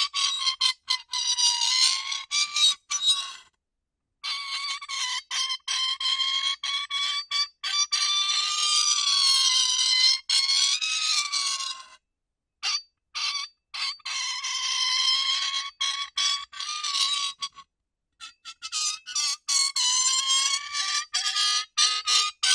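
Metal rubbing on metal, squeaking: a shrill squeal that wavers in pitch, drawn out in long strokes of several seconds and stuttering in places, with three brief breaks.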